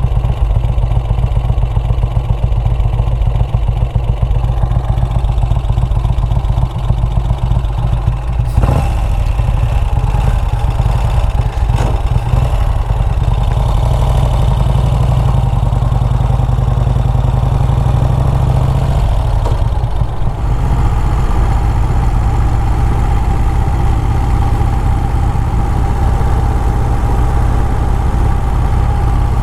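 Motorcycle engine running steadily at a low, even note, with a brief knock about eight and a half seconds in and a slight drop in the engine's note about twenty seconds in.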